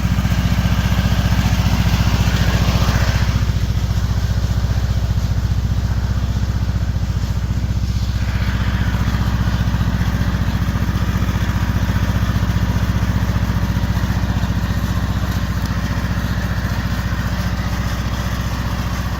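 Riding lawn mower engine running steadily at a constant speed, with a low, even drone.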